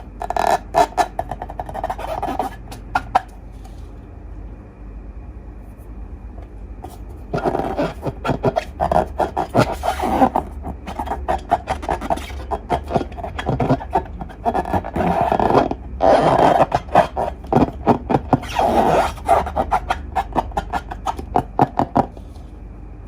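Slime being squeezed and worked by hand, making rapid crackling clicks and pops. It comes in two stretches, with a quieter pause from about three to seven seconds in.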